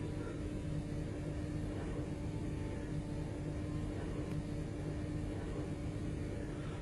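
Steady low hum and rumble with one constant mid-pitched tone, unchanging throughout.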